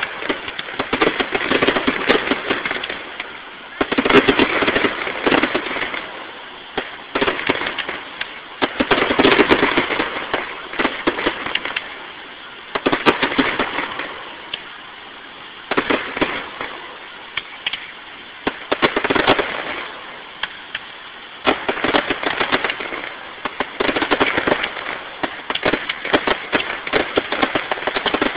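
Aerial fireworks bursting in clusters of rapid popping and crackling, one cluster every few seconds.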